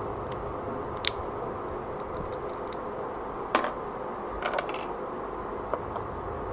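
A few small, sharp plastic clicks and taps from handling Kailh Speed Copper keyboard switch parts during disassembly and lubing, the loudest about halfway through, over a steady background hum.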